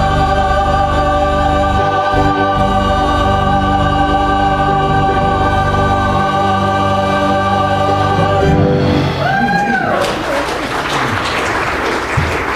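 Church choir with accompaniment holding a long final chord, which ends about nine seconds in. The congregation then applauds, with one voice call rising and falling as the clapping starts.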